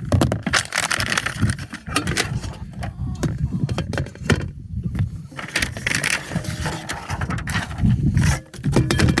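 Handling noise from unpacking and handling a new frying pan and its lid: rustling, irregular clicks and knocks, over a steady low rumble.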